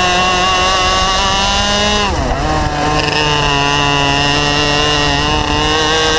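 Two-stroke racing kart engine at high revs, heard onboard. The revs drop sharply about two seconds in as the driver lifts off for a corner, then climb steadily again on the way out.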